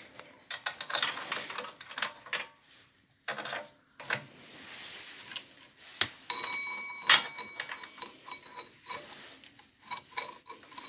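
Go-kart roller chain clinking and rattling against the torque converter's sprocket as it is fed on by hand and the pulley is turned, giving a string of uneven light metal clicks with a short pause near the middle. From about six seconds in, a faint high-pitched ringing runs under the clicks.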